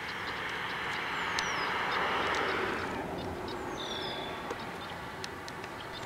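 Small birds chirping in a marsh, with scattered high chirps and a few short downward-sliding whistles, over a steady rushing background noise that swells for a couple of seconds and then drops off abruptly about halfway through.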